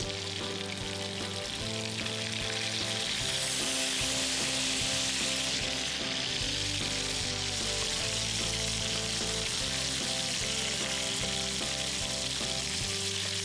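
Food sizzling in hot oil in a wok, stirred now and then; the sizzle grows louder about three seconds in and stays strong.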